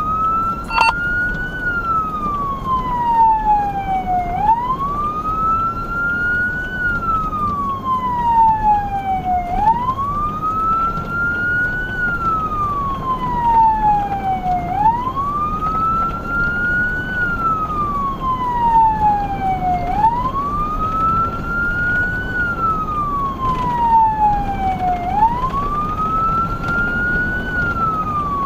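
Emergency vehicle siren on a wail, each cycle rising over about two seconds and then falling slowly, repeating about every five seconds, over steady engine and road rumble. There is a short click about a second in.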